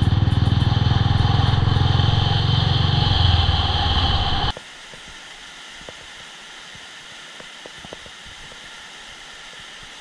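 A motor vehicle engine running with a strong low rumble. About halfway through it gives way abruptly to a faint steady hiss with a few small ticks.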